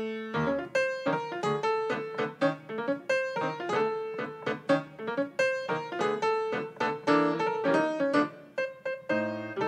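Grand piano played solo, a brisk stream of notes several a second with a low bass note struck near the end.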